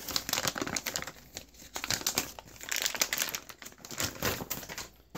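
Thin clear plastic vacuum-pack bag crinkling and rustling as a spool of PLA filament is worked out of it, in about three bouts that stop just before the end.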